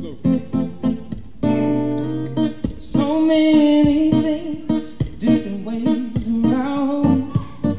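Live acoustic guitar playing a slow intro of picked notes and a ringing strummed chord, with a man singing long wordless notes over it from about three seconds in.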